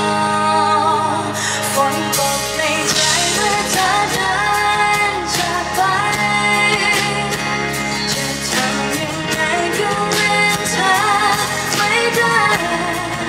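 A woman singing a Thai pop song live through a PA, accompanied on acoustic guitar.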